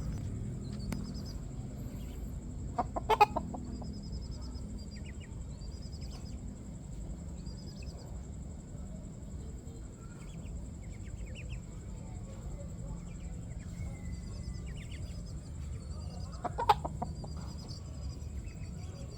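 Domestic hen clucking twice: a quick run of clucks about three seconds in and another near the end. Between them are a steady low rumble and faint high chirps.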